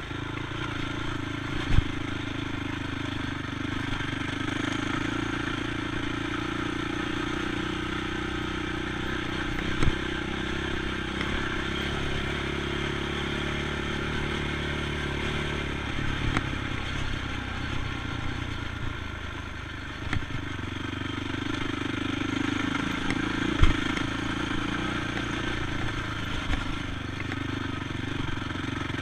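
ATV engine running steadily under way, its pitch changing about halfway through, with a few sharp knocks and some clatter.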